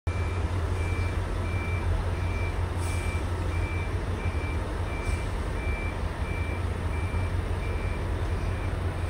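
Diesel locomotive's low engine rumble as it hauls a passenger train slowly along the yard tracks, with a steady electronic warning beep repeating about three times every two seconds over it.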